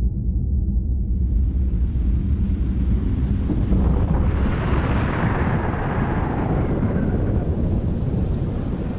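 Deep, steady sound-effect rumble. A high hiss comes in about a second in, and a rushing noise swells up through the middle and eases off again toward the end.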